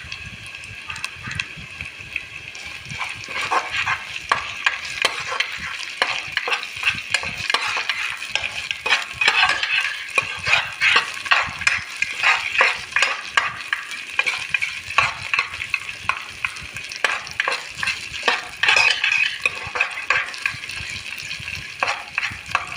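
Onion, ginger-garlic paste and ground mustard seeds frying in oil in a pan, with a steady sizzle and repeated scrapes of a spatula stirring the mixture.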